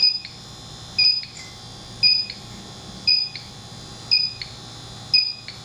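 Electronic refrigerant leak detector beeping at a slow, steady rate of one short high beep about every second. It does not speed up, so it is not picking up the R-410A leak.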